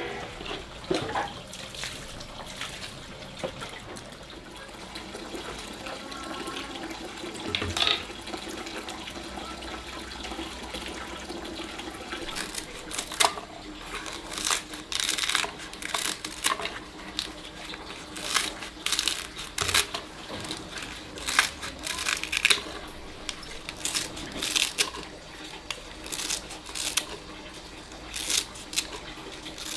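Water running and splashing, with a run of irregular knocks and clatter in the second half.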